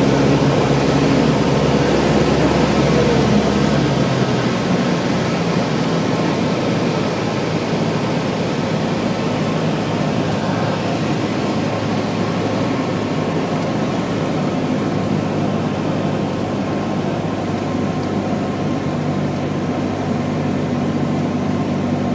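Steady cabin drone of a propeller-driven high-wing light aircraft in flight: engine and propeller noise over rushing air. About four seconds in, the deepest part of the drone drops away and it becomes slightly quieter.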